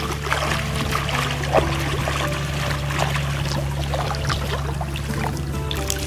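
Shallow muddy water splashing and sloshing as a person wades and hauls a cast net through it, with background music underneath.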